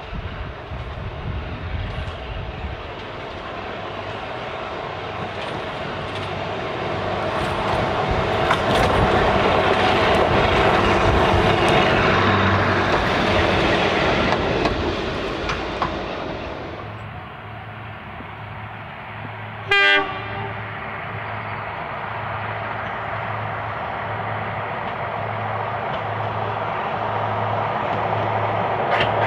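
Walker railmotor with twin Gardner 8LW diesel engines running as it comes up and passes, growing loud and then fading. It then draws near again with a steady low beat and rising sound, and gives one short horn blast about two-thirds of the way through.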